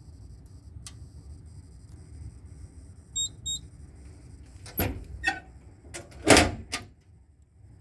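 Two short, high electronic beeps about three seconds in, then a handful of knocks and clunks, the loudest a little past six seconds in, over a low steady rumble.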